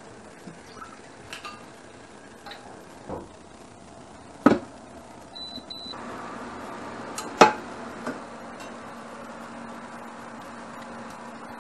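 Kitchen clatter from a pot being handled, with a loud knock as it is set down. An induction hob beeps twice as it is switched on, then its cooling fan runs with a steady hum. Another loud knock comes about three seconds after the first.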